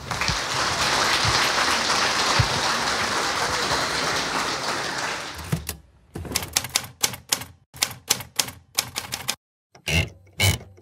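Audience applauding in a hall, stopping abruptly after about five seconds, followed by an irregular run of sharp clicks and knocks.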